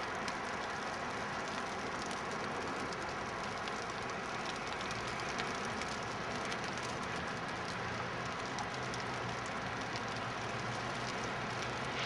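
Steady outdoor ambience during snowfall: an even hiss sprinkled with fine light ticks, and a low hum that comes up about halfway through.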